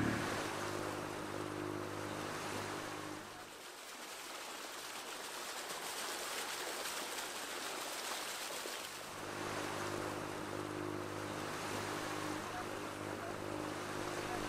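Water rushing and splashing off the bow of an aluminium sailboat under motor, over the steady low hum of its engine. For a few seconds in the middle the engine hum drops away and only the hiss of the bow wave is heard.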